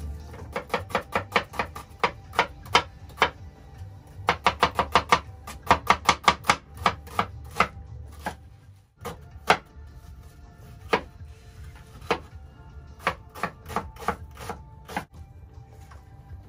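Chef's knife chopping an onion on a wooden cutting board: quick runs of sharp knocks, several a second, broken by short pauses, with the strokes coming fewer and further apart in the second half.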